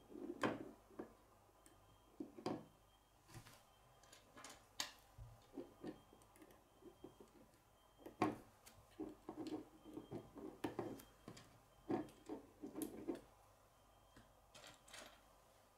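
Plastic K'nex rods and connectors clicking and snapping together by hand, with pieces knocking on a wooden tabletop: irregular, scattered clicks.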